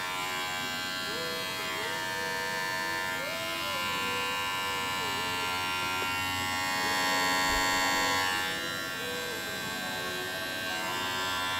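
Kemei 809A cordless hair clipper running steadily, its motor and blade giving a continuous hum of many fine steady tones. It grows a little louder about six seconds in, then eases back about two seconds later.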